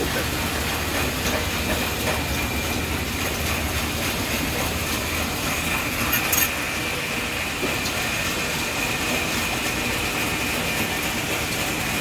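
Large sawmill band saw running steadily, with a constant high whine over a low hum. A short sharp clack sounds about six seconds in.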